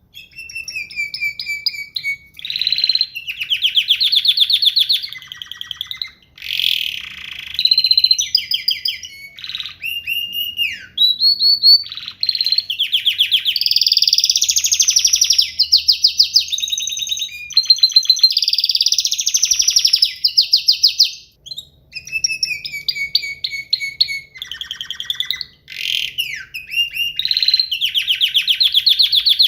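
Roller canary singing a long continuous song: fast rolling trills and gliding whistled notes in phrases a few seconds long, each broken by a short pause.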